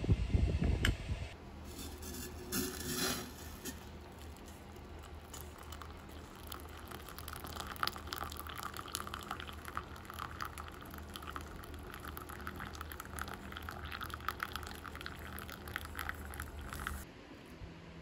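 Hot water poured from a kettle into a ceramic mug, a steady splashing pour that starts about seven seconds in and stops shortly before the end. A brief clatter of a spoon on a plate comes at the very start.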